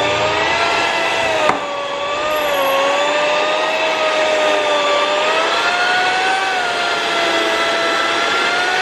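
Electric mixer motor running with its dough hooks kneading focaccia dough: a loud, steady whine whose pitch wavers slowly under the dough's load, with a sharp knock about one and a half seconds in.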